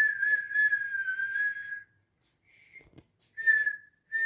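Someone whistling: one long held note, dipping slightly in pitch, then after a pause a couple of short notes near the end, with a few light clicks.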